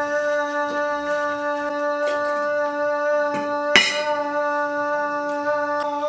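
A single steady horn-like tone held at one pitch, with a sharp click a little under four seconds in.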